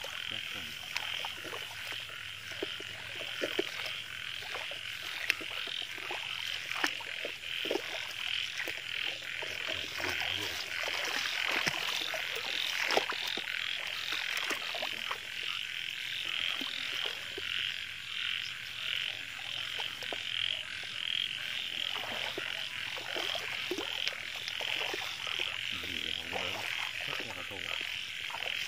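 A chorus of frogs calling, a steady dense pulsing chorus throughout, with scattered short clicks and rustles of movement through wet grass.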